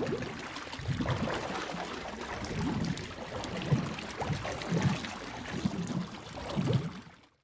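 Underwater bubbling sound effect: a steady wash of water noise with many small, low bubble blips, fading out near the end.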